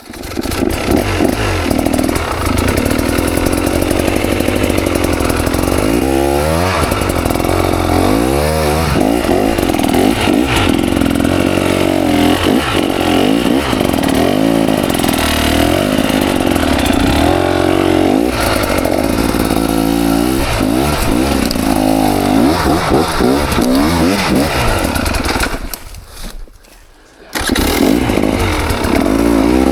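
KTM 300 XC single-cylinder two-stroke dirt bike engine revving, its pitch rising and falling quickly a few seconds in. Near the end the engine sound drops away for about a second and a half, then picks up again.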